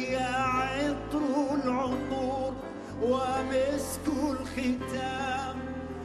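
A man singing an ornamented Arabic melody with wavering, vibrato-laden notes, backed by a keyboard.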